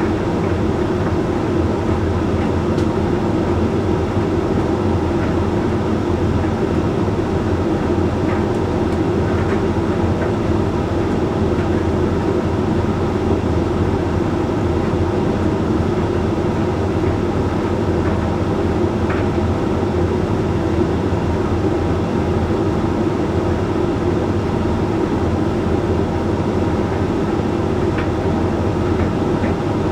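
Hoover Link X Care HLX C10DRGR condenser tumble dryer running mid-cycle on its Whites programme: a steady hum from the motor and fans with the load tumbling in the drum, and a few faint ticks.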